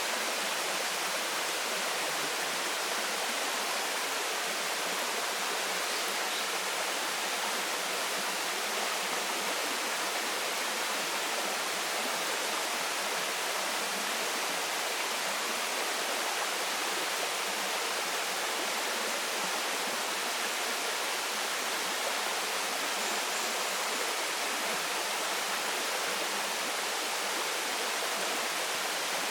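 Waterfall pouring into a rocky stream: a steady, unbroken rush of falling water.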